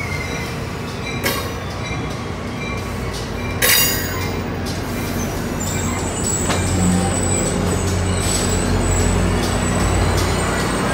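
Passenger train's stainless-steel coaches rolling slowly along a station platform, with a steady low rumble and the wheels knocking sharply over rail joints twice, the second knock the loudest. A thin high squeal sets in about halfway through.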